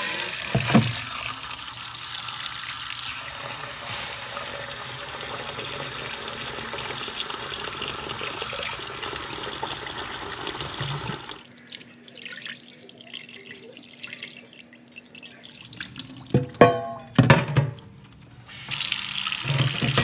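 Kitchen tap running steadily into a stainless steel bowl of shredded carrot and radish in a steel sink, rinsing the salt out of the vegetables, then shutting off about eleven seconds in. A few knocks of the bowl and basket follow, and water splashes again near the end as the vegetables are drained.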